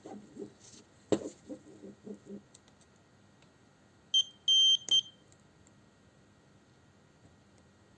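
Cheap Chinese battery spot welder beeping as it fires a weld on nickel-plated steel strip over an 18650 cell: a short beep, a longer beep, then a sharp snap of the weld pulse with another short beep, about four to five seconds in. Before that, a few soft knocks and clicks as the strip is set in place.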